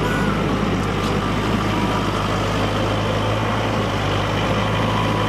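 Diesel engine of an LS XR4040 compact tractor running steadily at a constant low speed.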